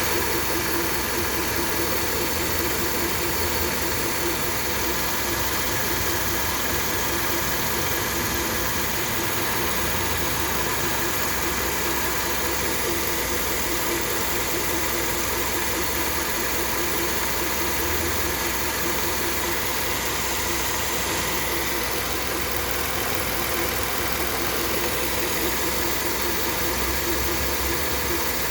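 Hyundai HB20 engine idling steadily with a constant mechanical noise that the owner puts down to the water pump. The electric radiator cooling fan runs without switching off.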